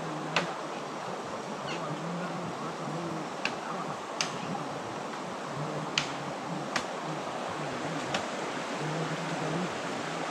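Steady rush of a river running over rocky rapids, with a handful of sharp, brief clicks at uneven intervals.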